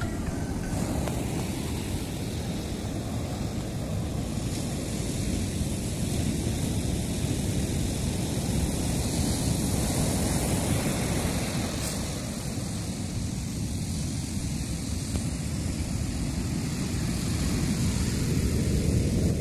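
High, rough surf breaking on the shore, a steady low rumbling wash of noise with no pause.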